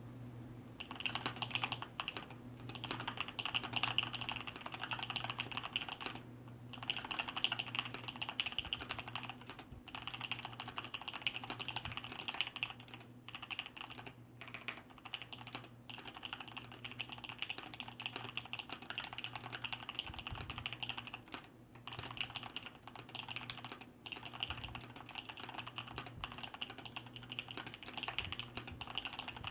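Continuous fast typing on a Thermaltake Poseidon Z RGB mechanical keyboard with Kailh Brown tactile switches, its sliders and stabilizers lubed and its case sound-dampened. Dense key clatter with a few short breaks, over a faint steady hum.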